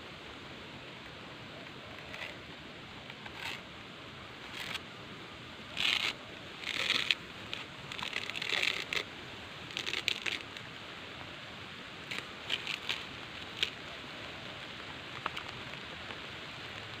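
Irregular bursts of rustling and scraping from hands working with plant material close to the ground, busiest in the middle, over a steady background hiss.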